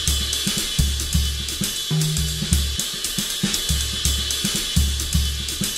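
Background music driven by a drum kit, with quick, even hi-hat and cymbal ticks over long low bass notes.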